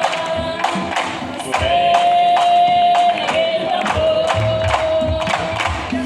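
Candombe drums playing a steady beat, strokes about three a second, under a group of voices singing a chorus in long held notes.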